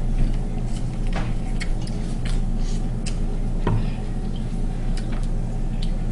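Eating sounds from a seafood boil: irregular small clicks and cracks of shells being broken and picked, and wet chewing, over a steady low hum.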